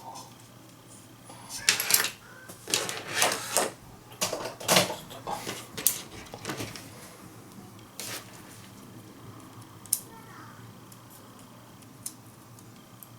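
Plastic casing of a TV remote being handled and fitted together: a run of sharp clicks and rattles, then a few single clicks spaced a couple of seconds apart.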